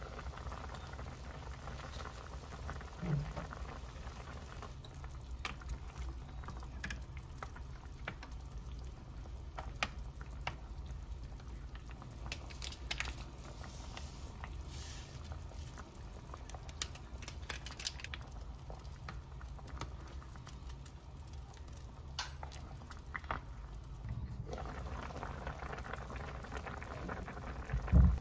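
Home-cooking sounds: food bubbling in a pot, with scattered light clicks of utensils and a dull knock near the end.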